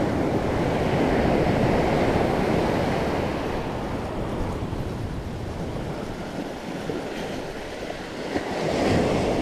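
Surf washing onto a sandy beach, swelling and easing, with wind buffeting the microphone.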